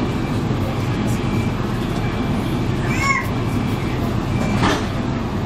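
Diesel multiple unit's underfloor diesel engine idling with a steady low rumble while the train stands at the platform. About three seconds in there is a short squeak, and near the end a brief hiss.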